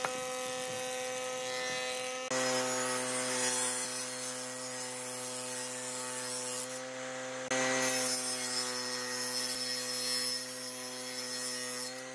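Electric woodworking machines running with a steady motor hum under the hiss of wood being cut: a planer shaving a timber beam, then a table saw cutting along a board. The sound changes abruptly about two seconds in and again near eight seconds.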